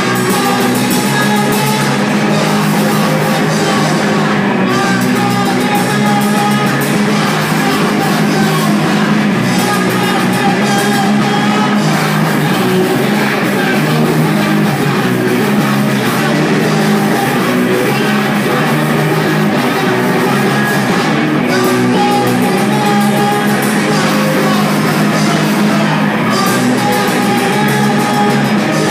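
Loud, continuous rock music with singing.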